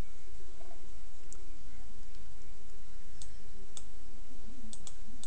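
Computer mouse clicks, about five scattered across a few seconds, over a steady low hum.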